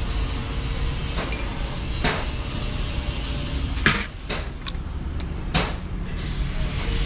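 Metal clinks of a socket wrench and extension bar on bolts in an Isuzu diesel engine's timing-gear housing: a handful of sharp, ringing clinks, the loudest about four seconds in, over a steady low rumble.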